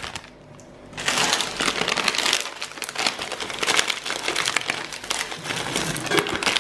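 A plastic sweet packet crinkling as sugar-shelled chocolate mini eggs are shaken out of it, clattering into a saucepan of Rice Krispie mixture. It starts about a second in and carries on as a dense crackle of small clicks.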